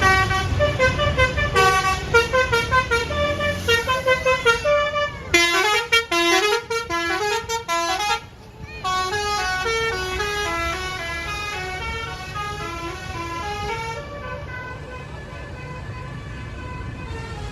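Basuri telolet musical bus horn playing a quick melody of stepped notes, over a low engine rumble at first. It breaks off briefly about eight seconds in, then carries on more softly near the end.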